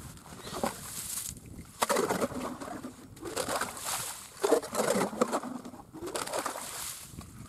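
Ice auger being worked up and down in a freshly drilled hole through double ice, scraping and crunching ice chips and slush in about four bursts.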